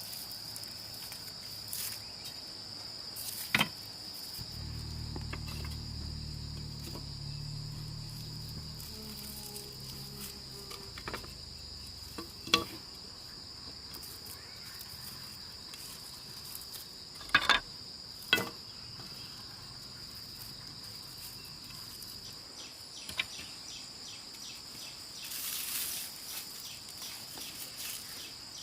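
Steady, high-pitched insect chorus of crickets trilling without a break. A low hum comes in about four seconds in and fades out by about ten seconds, and a few sharp knocks or taps stand out, the loudest being a double knock about two-thirds of the way through.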